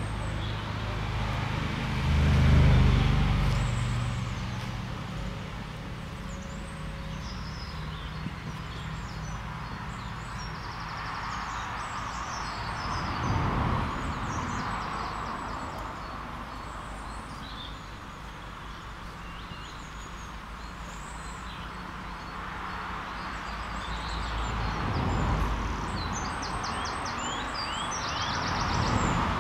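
Road traffic passing one vehicle at a time, each pass swelling up and fading away: once near the start, once in the middle and once near the end. Small birds chirp now and then above it.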